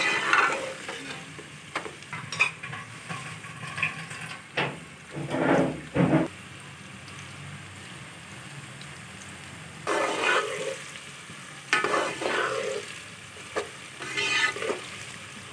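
Sliced onions and green chillies frying in oil in an aluminium pot, a steady sizzle, with a steel ladle stirring and scraping against the pot in several spells of a second or two. The onions are still giving off water and not yet browned.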